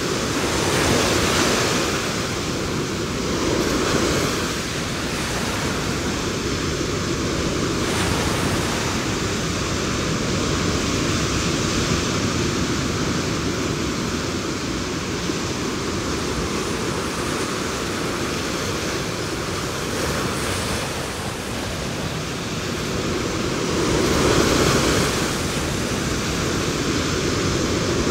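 Ocean surf breaking on a beach: a continuous rush of waves that swells louder with each breaker, loudest about 24 seconds in.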